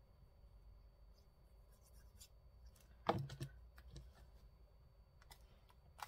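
Faint handling sounds of paper craft work at a table: light scratches and ticks of paper and tools being moved, with one louder knock about three seconds in.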